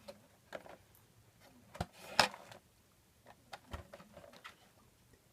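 Small clicks, taps and brief rustles of a new microphone kit's box, packaging and parts being handled, the loudest knock a little after two seconds in.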